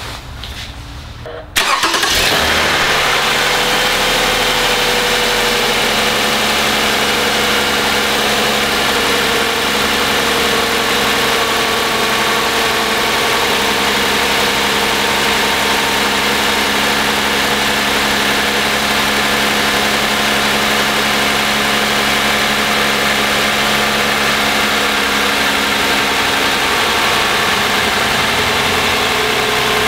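2010 Toyota Camry's 3.5-litre V6 (2GR-FE) engine cold-started. It catches suddenly about a second and a half in and then idles steadily.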